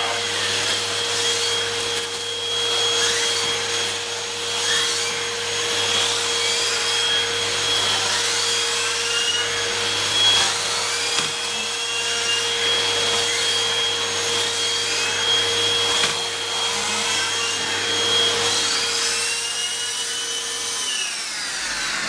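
Hoover WindTunnel upright vacuum running with its air-driven turbo brush wand attachment on a rug. Over the steady motor drone, the brush's air turbine whines, rising and falling again and again as it accelerates and decelerates with use. Near the end the motor is switched off and the sound winds down.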